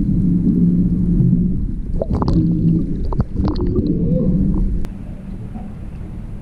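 Muffled underwater sound through a camera's waterproof housing: a steady low rumble of water, with a few knocks and short squeaks. About five seconds in it drops to a quieter, even open-air background.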